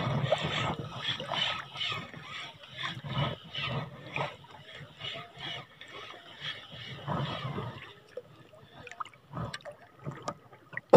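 Shallow seawater sloshing in irregular swishes about every half second, dying down near the end.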